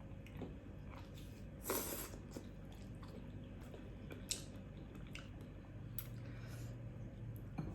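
A person chewing a mouthful of eggplant omelette, with soft wet mouth clicks and smacks scattered through; the loudest is a brief squelch about two seconds in.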